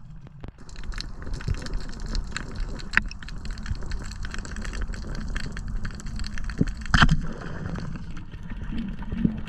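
Underwater sound through a camera housing: a steady low rumble with many scattered clicks and crackles, and one loud sharp clack about seven seconds in as a band-powered speargun fires its shaft.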